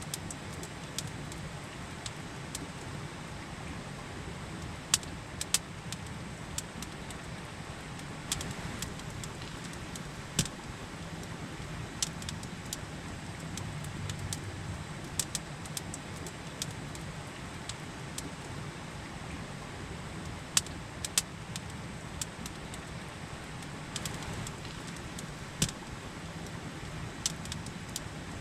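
Campfire crackling, with sharp wood pops at irregular intervals of a second to several seconds, over the steady rush of a river.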